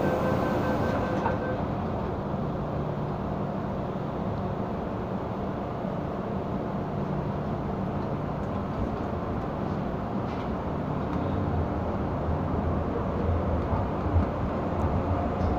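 Cabin noise of an MTR Island Line M-Train running between stations: a steady rumble of wheels on rail and running gear. A faint steady tone stops about a second in, and the low rumble grows a little stronger near the end.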